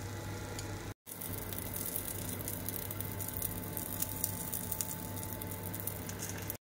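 Food sizzling in hot oil with a steady crackle. The sound cuts out briefly about a second in.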